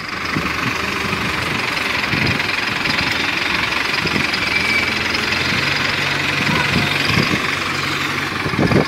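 Diesel engine running steadily. A low steady drone joins about halfway through and stops shortly before the end.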